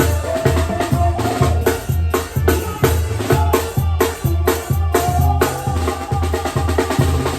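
Mexican tarolas band music: snare drums and drum beats over a steady bass pulse about twice a second, with held melody notes above.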